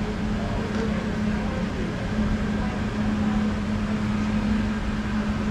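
Steady machine hum: one constant low drone that does not change in pitch, over a low rumble.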